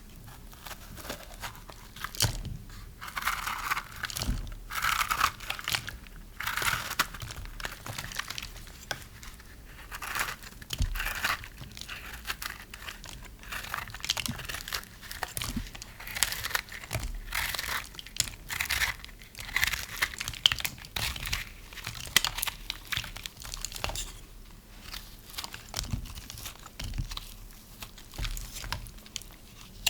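A knife cutting dry soap: repeated crisp crunching and crackling as the blade breaks through it, in irregular strokes.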